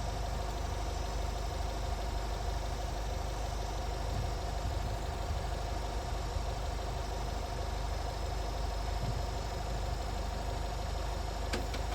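Leyland truck diesel engine being cranked over steadily by its starter motor with the injectors open, struggling to start on weak, boosted batteries.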